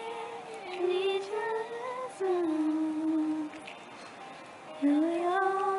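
A high female voice singing a slow melody in long held notes that slide from pitch to pitch, with a pause of about a second midway.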